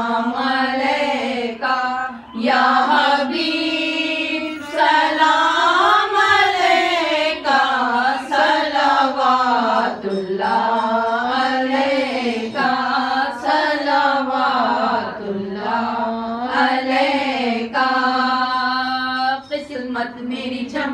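Women singing an Urdu salam to the Prophet Muhammad without instruments: a slow devotional chant with long, bending held notes that runs on without a break.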